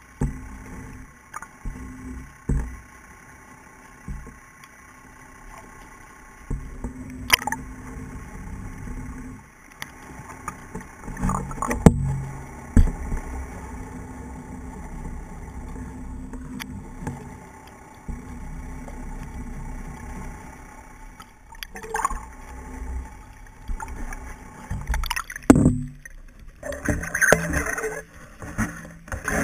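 Underwater audio heard through a camera's waterproof housing: muffled water movement with several sharp knocks. Near the end, brighter splashing and water noise as the camera breaks the surface.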